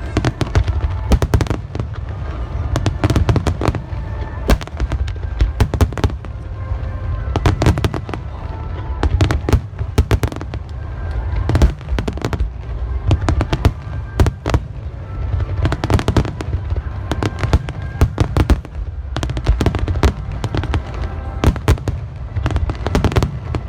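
Aerial fireworks display going off in quick succession: many sharp bangs and crackles over a continuous low rumble of bursting shells, with no letup.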